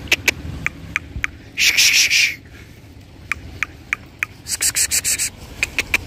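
Rustling and crackling of hedge leaves and dry litter as goats browse and move about, with scattered sharp clicks. There are two longer rustling bursts, about two seconds in and about five seconds in.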